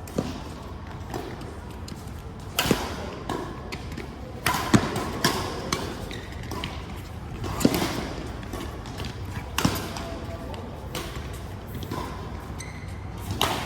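Badminton play: sharp racket strikes on the shuttlecock every one to three seconds, with thuds of footwork on the court between shots.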